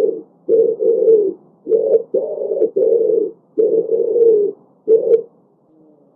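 Pigeons cooing: a string of short, low coos in quick succession, pausing near the end.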